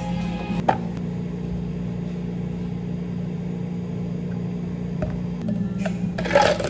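Steady hum of a cafe appliance motor, with a few light knocks of cups and utensils. Near the end comes a louder brief clatter as a metal scoop knocks against a plastic cup.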